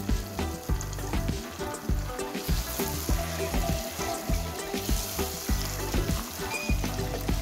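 Raw chicken pieces sizzling in hot oil with onion-tomato masala in a non-stick wok while being stirred with a spatula. The sizzle grows louder about a third of the way in.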